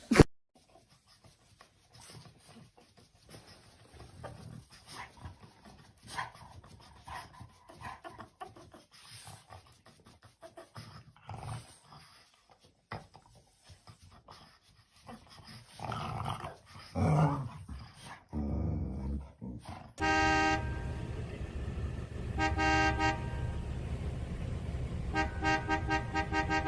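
Dog sounds. After a click at the start the track is mostly faint scattered noises, with a couple of short dog calls past the middle. In the last several seconds a repeated pulsing, tooting tone plays over a steady low hum.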